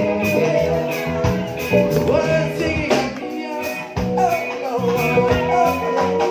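Live rock band playing, with a man singing over drums and electric guitar and a steady beat.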